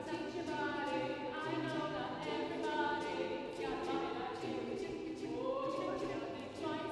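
Mixed-voice a cappella choir singing held chords, voices gliding between notes, with crisp ticks keeping a steady beat over them.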